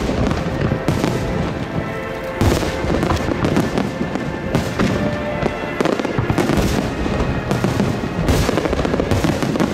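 Large aerial fireworks shells bursting and crackling in quick succession, with several sharp reports standing out, over music.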